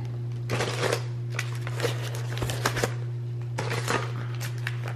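Tissue-paper and packaging sheets rustling and crinkling in several short bursts as they are lifted out of a cardboard box, over a steady low electrical hum.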